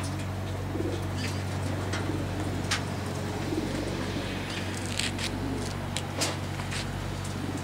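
Racing pigeons cooing over a steady low hum, with scattered sharp clicks.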